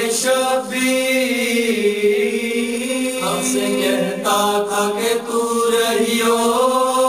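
Voices chanting a noha, the Shia lament of Muharram, in long held notes.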